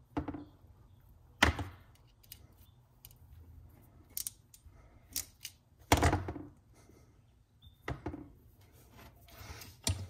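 Hand crimp tool clicking as Deutsch contact pins are crimped onto wire ends, with the tool and small parts knocking on the bench. A handful of sharp clicks and knocks with fainter ticks between, the loudest about six seconds in.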